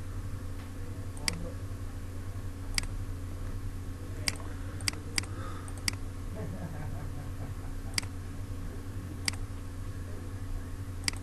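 Computer mouse button clicking about nine times at irregular intervals, over a steady low electrical hum.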